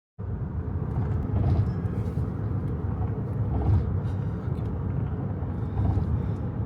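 Car driving at speed on a freeway: a steady low rumble of road and engine noise that cuts in suddenly just after the start.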